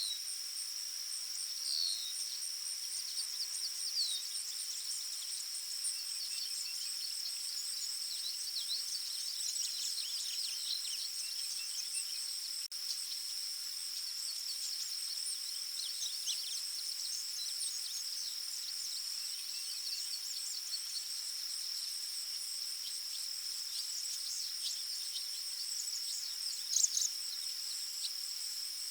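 Forest ambience: a steady high-pitched insect drone runs on without a break. Many short bird chirps are scattered over it, with one louder call near the end.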